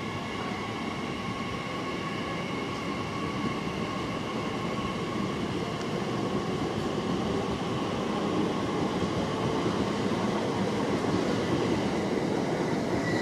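TfL Rail Class 345 Aventra electric train moving past, a steady whine over running rumble from wheels on rail, growing gradually louder toward the end.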